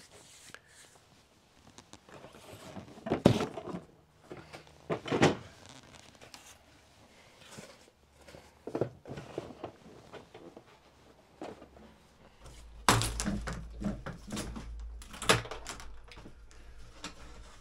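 Scattered thuds and knocks of a small box and other objects being handled at workshop shelves, the loudest about three and five seconds in. About thirteen seconds in, a low steady hum comes in under more clicks and knocks.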